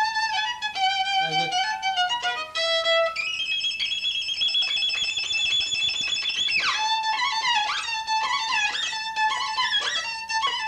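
Solo violin, a 300-year-old instrument freshly restored, bowed: a melody of short notes rises to a long high note held with vibrato, then slides quickly down into a faster run of notes.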